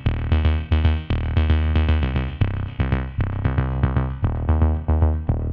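Electronic background music: a steady drum-machine beat under repeated synthesizer notes with a heavy bass.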